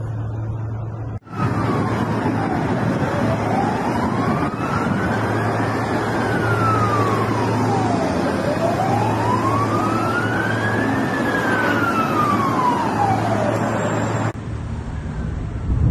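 Emergency vehicle siren wailing over traffic noise, its pitch rising slowly and falling again in two full cycles of about five seconds each. It starts abruptly about a second in and cuts off shortly before the end.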